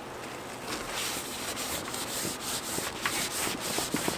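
Rubbing strokes as the greenhouse door flap is wiped down with isopropyl alcohol to clean it, starting about a second in, with a few light clicks among the strokes.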